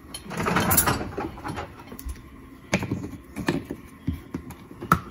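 Dishwasher being readied: a rattling, noisy stretch in the first second, then several sharp separate clicks and knocks from handling its racks, detergent dispenser and door.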